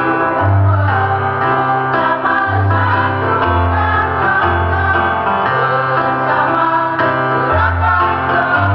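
Women's choir singing a song in parts, over an instrumental accompaniment whose bass holds each note for about a second before moving to the next.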